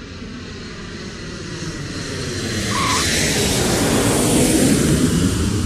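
Vehicle pass-by sound effect: a rumbling rush that swells in loudness over a few seconds and peaks near the end.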